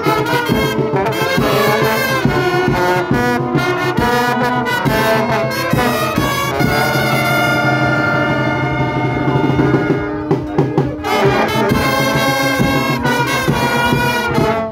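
Brass band of trombones and other brass horns playing a tune together, with a long held chord in the middle, a brief break about ten seconds in, then playing again.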